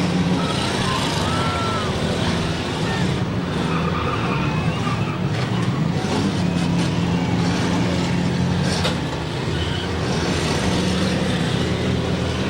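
Demolition derby cars' engines running and revving together, with a few short knocks of metal as cars collide. Crowd voices run underneath.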